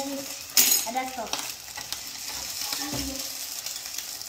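Eggs sizzling in oil in a hot frying pan while a slotted metal spatula stirs and scrapes them around the pan, with one louder scrape about half a second in.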